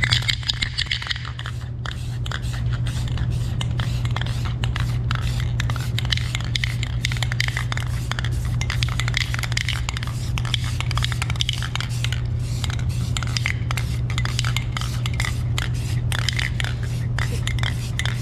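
Aerosol can of black spray paint hissing in short bursts, with irregular rattles and scrapes, over a steady low hum.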